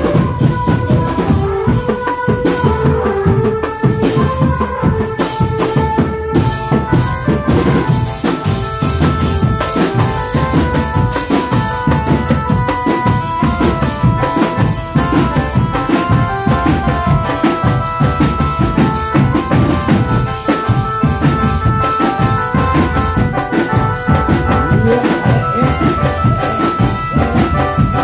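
Drumband music: drums and bass drum beating a fast, steady rhythm under a stepping melody line, played without a break.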